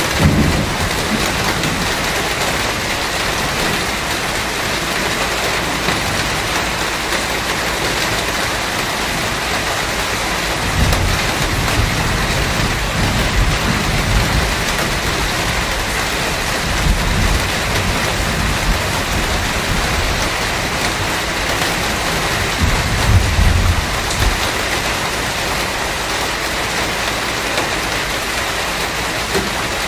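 Steady rain with rolls of thunder. A low rumble comes right at the start, and longer rumbles come about a third of the way in, past the middle and again toward the end.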